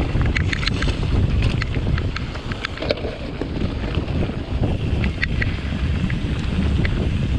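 Mountain bike riding down a dirt singletrack: wind buffeting the camera microphone and a steady low rumble of tyres and bike over rough ground, with scattered short ticks and rattles.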